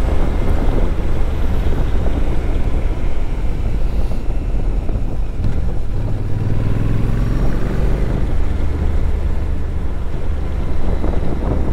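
Motorcycle engine running under way, mixed with wind noise and tyre hiss on a wet road; the engine note shifts in pitch around the middle.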